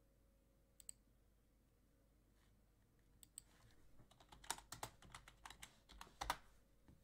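Faint typing on a computer keyboard: a couple of single clicks, then a quick run of keystrokes from about four seconds in, stopping shortly before the end.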